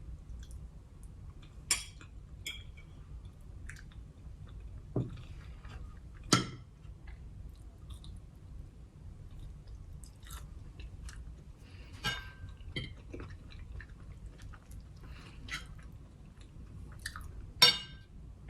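A person chewing food close to the microphone, with a few sharp clicks and knocks scattered through, the loudest four spread several seconds apart.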